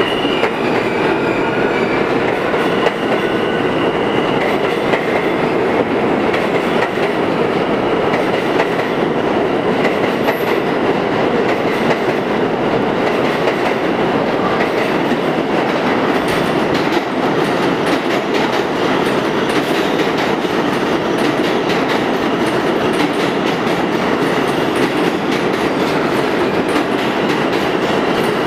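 R160A subway train running past along the station platform: a loud, steady rumble of wheels on rail with rapid clacking over the rail joints. A faint wheel squeal fades out in the first couple of seconds.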